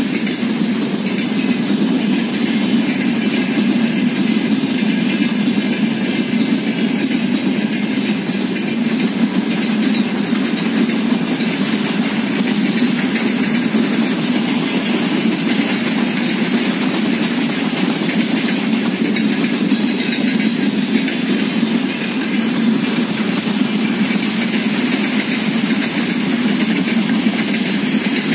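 Freight train wagons rolling past on the rails: a steady, unbroken noise of steel wheels on track.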